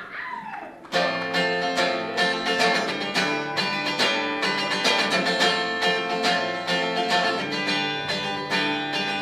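Acoustic guitar playing a picked song intro, starting about a second in, with many quick plucked notes over sustained chords.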